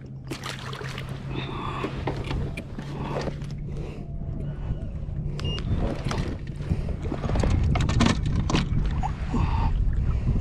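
Knocks, rattles and scrapes of gear being handled aboard a fishing kayak, over a steady low hum.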